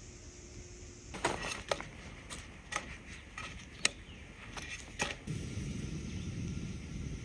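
A string of sharp clicks and taps as English muffins and a plastic bag are handled beside a frying pan, then from about five seconds in the steady low hiss of a small gas camp stove burner toasting the muffins in the pan.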